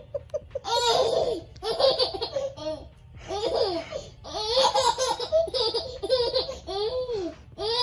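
A young child laughing in repeated high-pitched bursts, about one a second.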